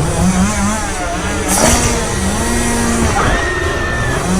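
A chainsaw engine revving in short bursts from the movie soundtrack, with voices over it and a high held cry near the end.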